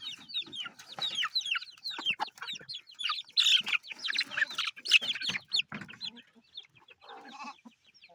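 A flock of chickens clucking and calling: many short, overlapping calls that are busiest and loudest in the middle, then thin out near the end.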